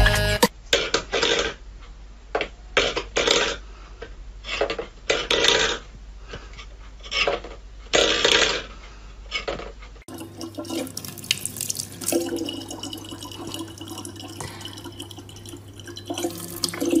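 Metal bowls clattering and scraping on a wooden floor in a string of short, irregular bursts. About ten seconds in this gives way to water running steadily from a tap in a thin stream into a plastic bottle.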